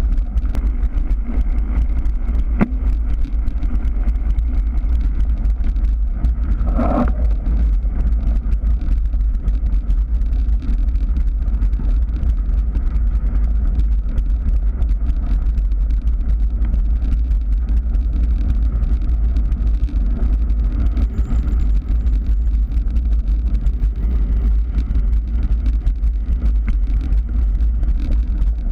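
Wind buffeting the microphone of a camera carried on a moving bicycle: a loud, steady low rumble, with many small clicks and rattles from the tyres on gravel. A brief higher-pitched sound comes about seven seconds in.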